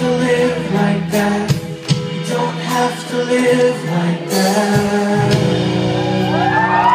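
Live rock band playing loud, with electric guitars, bass and drums, and a man singing into the microphone. About four seconds in the music gets fuller and brighter, with a wash of cymbals.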